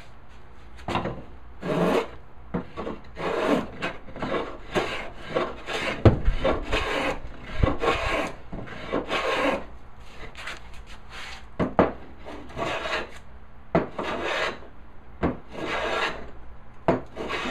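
Hand plane taking shavings off a walnut board in a run of short, irregular strokes, each a rasping hiss. There are a couple of low knocks about six and eight seconds in.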